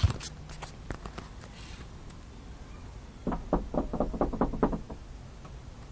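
Knuckles knocking quickly on a door: a run of about nine raps over a second and a half, starting about three seconds in.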